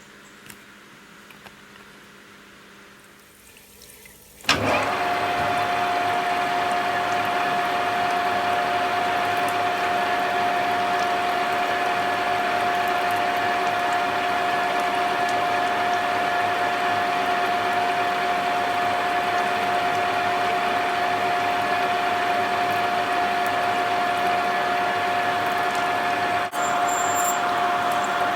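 A machine switches on about four seconds in and runs steadily with a constant whine over a hiss, briefly dipping near the end.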